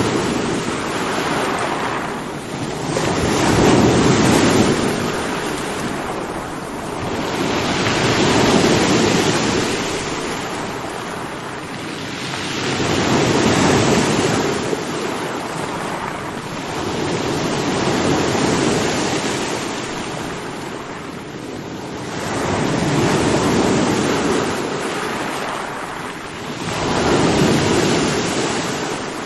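Ocean waves breaking on a shore in slow, regular surges: about six swells, each building to a rushing crash and falling back, one every four to five seconds.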